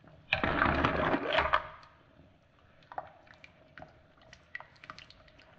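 Metal tongs stirring clams in a pot of hot cooking water: a burst of sloshing and clattering shells lasting about a second and a half, then scattered light clicks of the tongs against the shells over a faint steady hum.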